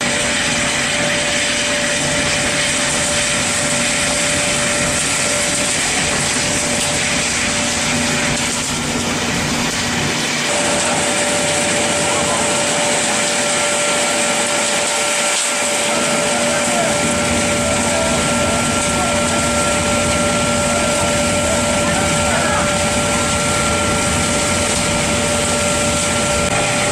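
Industrial sawdust burner running with its blower on: a steady loud roar with a constant whine.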